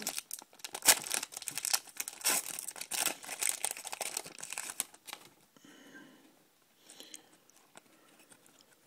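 Foil wrapper of a baseball card pack crinkling and tearing as it is ripped open by hand, dying down about five seconds in.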